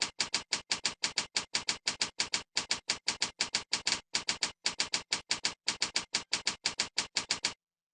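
Keys on a computer keyboard being typed in a fast, even run of about six keystrokes a second, entering a URL. The typing stops about half a second before the end.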